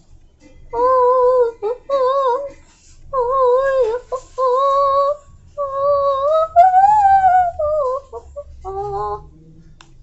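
A high voice singing a wordless tune in several short held phrases, the pitch wavering on each note and climbing highest about seven seconds in.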